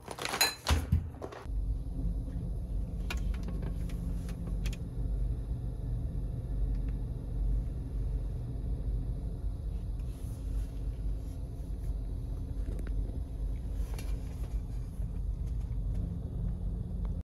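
A few sharp clicks and rustles in the first second or so, then the steady low rumble of a car heard from inside its cabin.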